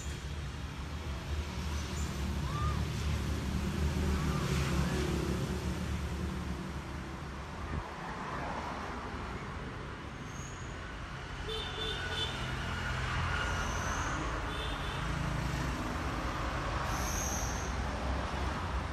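Steady low engine rumble with traffic noise.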